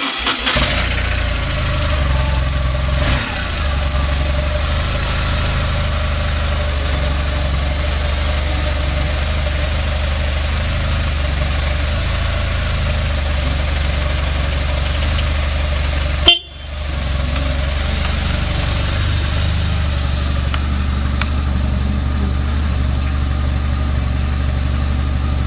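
BMW R1200C's air/oil-cooled boxer twin starting on the first press of the starter and settling at once into a steady, even idle with no abnormal noise. The sound cuts out sharply for a moment about sixteen seconds in, then the idle continues.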